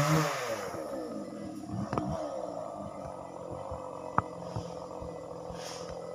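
Two-stroke chainsaw engine dropping from a rev to a steady idle, with a couple of sharp clicks about two and four seconds in.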